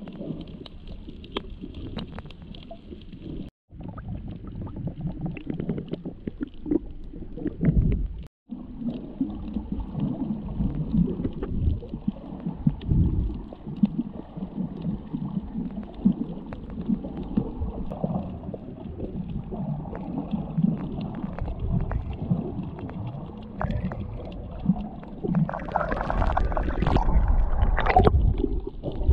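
Muffled underwater sound from a camera held under the water while snorkelling: low, irregular churning and gurgling of moving water. It cuts out briefly twice and grows louder near the end.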